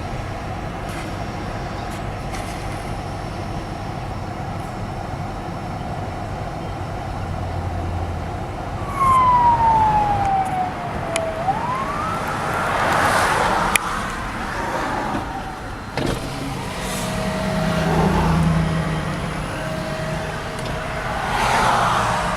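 Steady road and traffic noise while driving, with vehicles passing by. About nine seconds in, a siren wail falls in pitch and then rises again.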